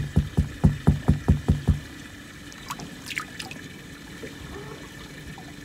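A quick, even run of hollow knocks, about four or five a second, stopping about two seconds in, then faint water trickling and lapping.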